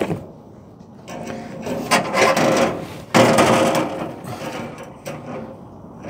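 Metal scraping and rubbing in a few irregular bursts, loudest a little after three seconds in, as pliers work a gas water heater's thermocouple back into its pilot burner bracket; the fit is stiff and rusty.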